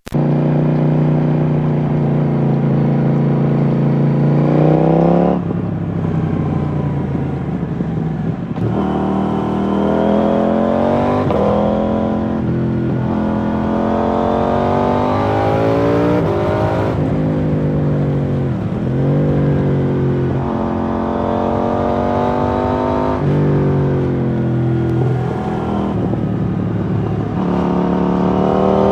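KTM 790 Duke's parallel-twin engine through an IXRACE MK2 exhaust without its dB killer, riding and accelerating hard: the pitch climbs, drops sharply at each gear change and climbs again, many times over, with one slowdown and pull-away partway through.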